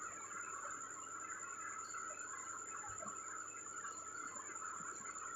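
Beef pieces and masala frying in ghee in a pressure-cooker pot: a steady, faint crackling sizzle, with a few light scrapes and taps of the spoon as the meat is stirred.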